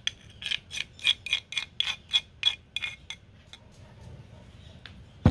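Metal spoon rapidly tapping and scraping inside a stone mortar to knock out a thick spice paste, sharp ringing clicks about four a second that stop about three seconds in.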